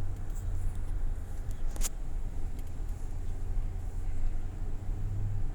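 Car driving, heard as a steady low road rumble, with a single sharp click about two seconds in.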